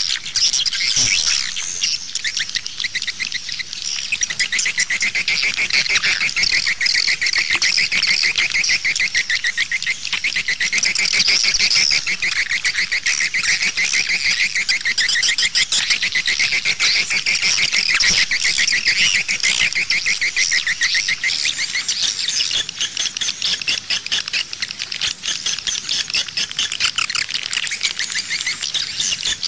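Recorded swiftlet calls: a dense, steady chorus of rapid, high twittering chirps. It is the lure call that swiftlet houses play from outside speakers to draw the birds in.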